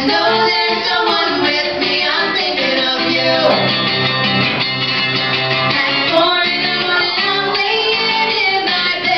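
Live band performance: a voice singing over strummed guitars.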